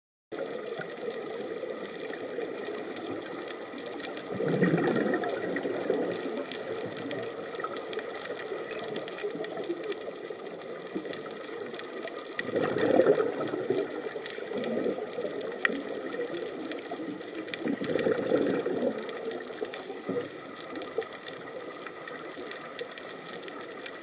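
Underwater sound on a coral reef: a steady fine crackle of many small clicks, typical of reef snapping shrimp. Over it come three bubbling rushes of scuba regulator exhaust bubbles, the first about four seconds in and the others spaced several seconds apart.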